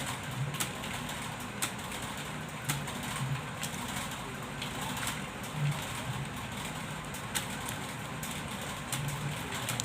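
Computer keyboard keys clicking irregularly during typing practice, a few sharp clicks a second at most, over a steady hiss. Short low hums come and go among the clicks.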